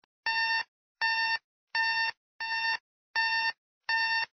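Electronic beeping: six evenly spaced beeps of one steady pitch, each under half a second long, one roughly every three-quarters of a second.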